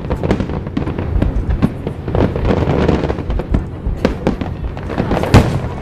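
Aerial fireworks bursting in rapid succession: a dense run of sharp bangs and crackling over a low rumble, with the loudest bang about five seconds in.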